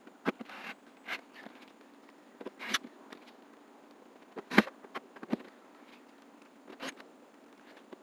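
Scattered light clicks and knocks of tools and fasteners being handled on an RV rooftop air conditioner's metal housing, the sharpest about halfway through.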